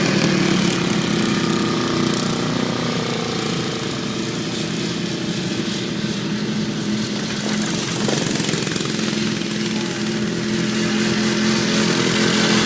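Engines of racing ride-on lawnmowers running, a steady drone that eases off in the middle and grows louder again near the end.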